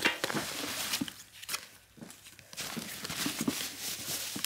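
A stack of glossy FIFA football trading cards being flicked through and shuffled by hand: irregular light taps and rustling of card on card.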